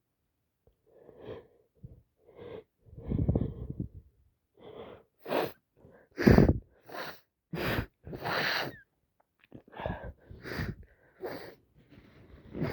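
A woman with a heavy head cold sneezing again and again, with wheezy breaths between. After a moment of quiet comes a run of about a dozen short bursts, the loudest about six seconds in.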